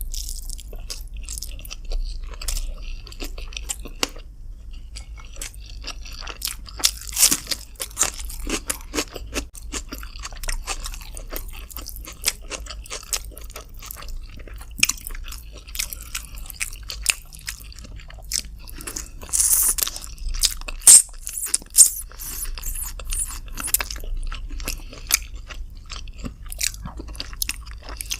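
Close-miked chewing and biting of chicken with rice: wet smacking and crunchy crackles, coming in clusters, loudest about a third of the way in and again around two thirds through.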